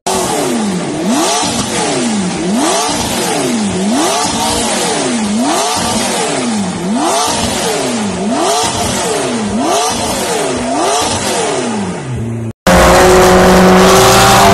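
McLaren 650S twin-turbo V8 revved over and over while standing still, about eight blips in a row, each rising and falling over roughly a second and a half. Near the end it cuts off and a louder, steadier engine note from another McLaren takes over.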